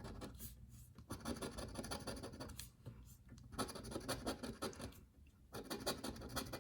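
A scratch-off lottery ticket's coating being scraped off with a lottery scratcher tool, in several short spells of rapid scratching with brief pauses between them.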